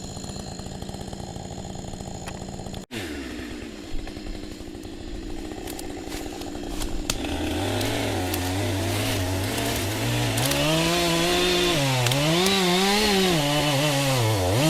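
Two-stroke chainsaw running steady, then after a sudden break its engine climbs and revs, the pitch dipping and recovering again and again as it cuts into wood.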